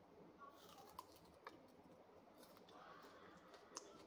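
Near silence with faint eating sounds: a few soft clicks from chewing and from fingers picking food off a plate.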